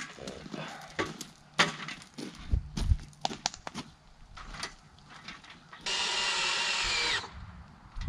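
Scattered knocks and clatter of wooden slats being handled, then, about six seconds in, a power drill runs for just over a second driving a screw into a wooden roofing slat, its pitch sagging as the screw seats.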